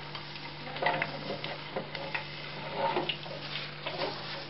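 Sausages frying in hot oil in an electric deep fryer: irregular crackling and popping, with a few louder pops about a second in and near three seconds.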